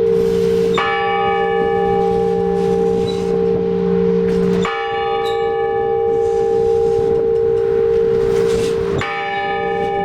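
Orthodox church bells ringing in slow strokes, about one every four seconds, three strikes in all. Each stroke rings on with a steady deep hum under it until the next.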